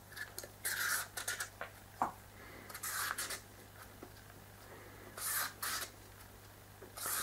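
Vegetable peeler scraping strips off a peeled butternut squash, making 'spaghetti' ribbons: about half a dozen short scraping strokes a second or two apart, with a light tick about two seconds in.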